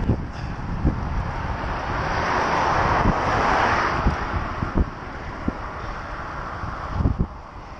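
A car overtaking the bicycle: tyre and road noise swells and fades over about two seconds, in the middle of the stretch. Wind buffets the microphone throughout, with gusts.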